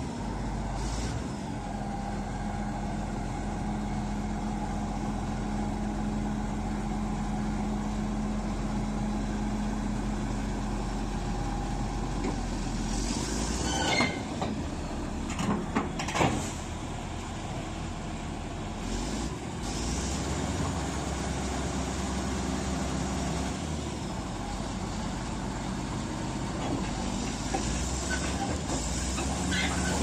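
Komatsu D155AX crawler bulldozer's diesel engine running steadily at idle. About halfway through comes a short cluster of sharp knocks and hisses.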